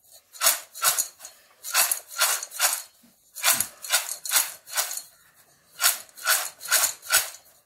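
Fried field-bean dal rattling and swishing against a stainless steel bowl as the bowl is shaken and tossed to coat the beans with chilli powder and salt. The rattles come in short runs of three or four shakes, about two or three a second, with brief pauses between runs.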